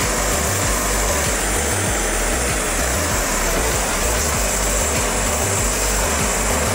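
Gas torch flame hissing and rumbling steadily as it heats the soldered tank joint of a radiator.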